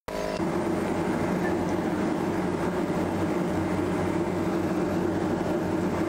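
Spray (misting) fan running steadily: a motor hum over rushing air as it blows a fine water mist.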